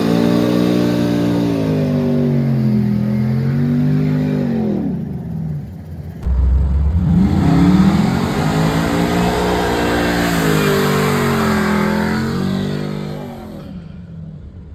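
GM pickup truck engines revving hard, the pitch rising and falling repeatedly. There are two stretches: the first heard from outside, the second, after a sudden change about six seconds in, from inside a truck's cab.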